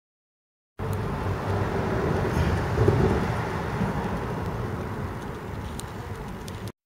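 Outdoor background noise of road traffic: a low rumble with hiss. It starts suddenly about a second in after silence, swells around two to three seconds in as if a vehicle were passing, and cuts off abruptly near the end.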